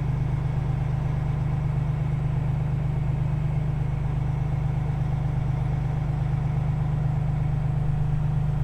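Grain truck's diesel engine idling steadily, a constant low hum with a fine, even pulse.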